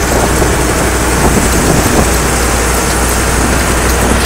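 Deutz tractor's air-cooled diesel engine running steadily as the tractor drives along, heard close to the hood: a loud, even, harsh din over a constant low hum.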